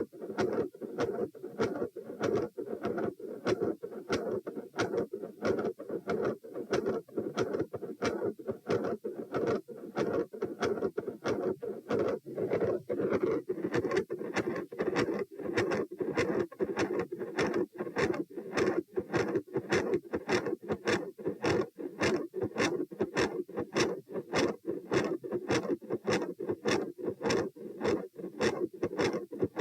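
Heartbeat heard through a stethoscope over the pulmonic area: regular paired heart sounds over a constant rushing noise, with a murmur that changes as the subject goes from lying down to standing and the rate quickens from about 78 to 102 beats a minute.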